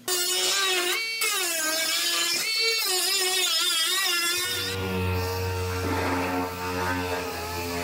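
Pneumatic cut-off wheel whining as it cuts through the sheet-metal rocker panel, its pitch wavering up and down under load, with a brief stop about a second in. About four seconds in it gives way to the steadier, lower hum of a dual-action air sander.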